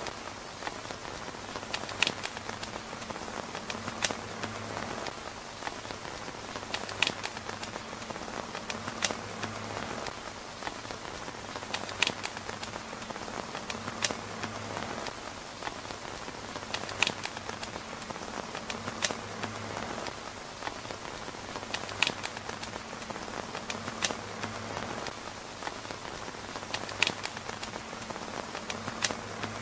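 Steady rain pattering on a tent roof, with sharp ticks every two to three seconds standing out above it.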